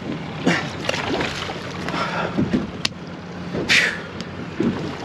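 Wind and lapping water around a small boat, with a sharp click near the three-second mark and then a short splash as a mutton snapper is tossed back over the side.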